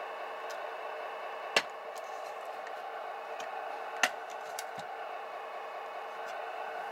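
A steady mechanical hum from the radio-controlled models, with a few sharp clicks: two loud ones, about a second and a half in and about four seconds in, and several fainter ticks between.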